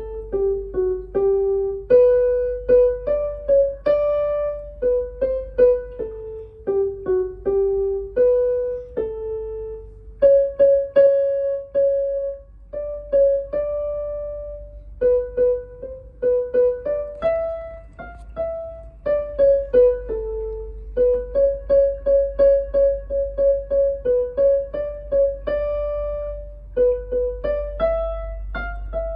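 A Yamaha PSR-E453 portable keyboard playing a slow, simple melody in a piano voice, one struck note at a time, with short runs of quickly repeated notes.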